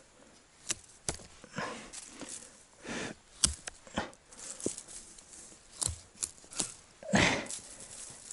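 Leafy branches rustling in short bursts, with irregular sharp snaps and clicks of twigs being broken, as brush is handled and worked into a blind. The loudest rustle comes about a second before the end.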